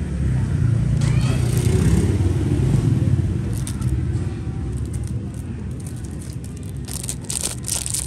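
Low rumble of a passing vehicle, swelling over the first few seconds and then fading, with several sharp clicks near the end.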